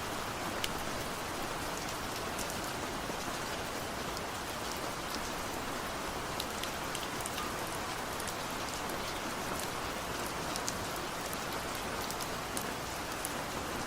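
Steady rainfall, a constant hiss with many individual drops ticking through it.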